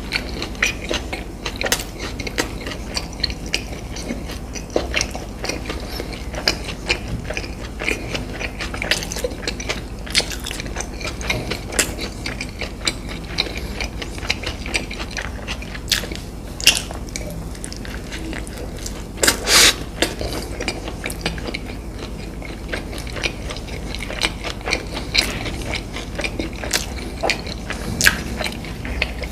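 Close-miked chewing and crunching of food, with dense irregular crackles and a louder burst of crunches about two-thirds of the way through.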